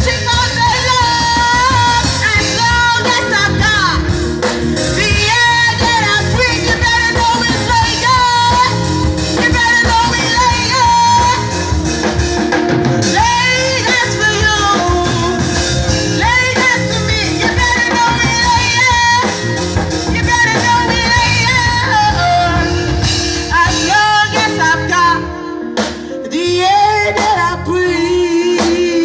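Live band of keyboard, electric guitar and drum kit playing while a woman sings into a microphone, her voice bending and wavering in long held lines without clear words.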